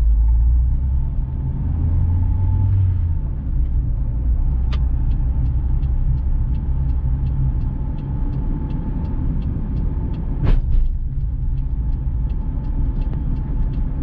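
Car driving on a highway, heard from inside the cabin: a steady low rumble of engine and road noise. About five seconds in, a quick regular ticking starts, about three ticks a second, and runs on. One sharp thump comes about ten seconds in.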